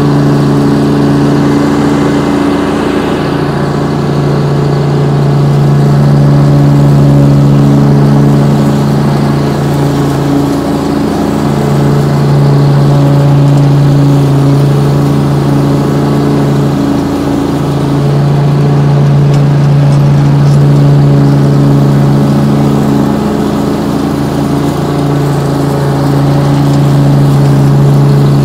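Honda engine of a zero-turn ride-on mower running at full throttle with the cutting deck engaged while mowing grass. It is a steady drone that swells and fades in loudness a few times.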